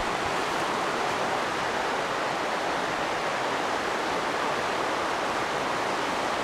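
Shallow river running over rocks and small rapids: a steady rushing of water.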